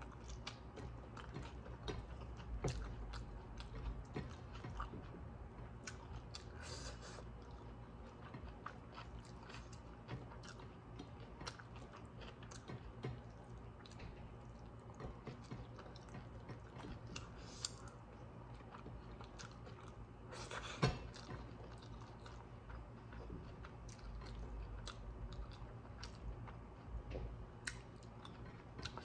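Close-up chewing and mouth sounds of people eating a meal of greens and chicken curry, with many small wet clicks and smacks and one sharper click about 21 seconds in.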